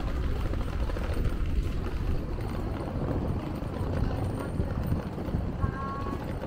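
Wheels of a suitcase rolling over brick paving, a continuous rapid rattle as they cross the joints between the pavers.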